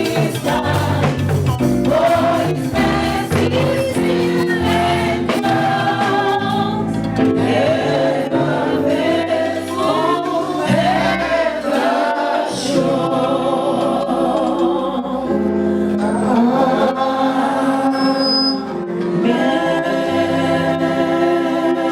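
Choir singing a gospel song with music behind it, steady and continuous.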